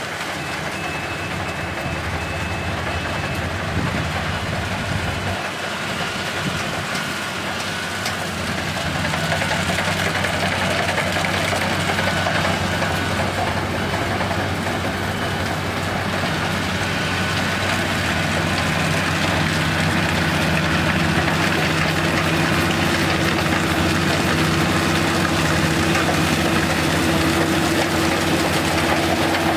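Kubota DC-35 combine harvester running while harvesting rice: a steady diesel-and-machinery drone that grows a little louder about a third of the way in, with a stronger hum setting in past the middle.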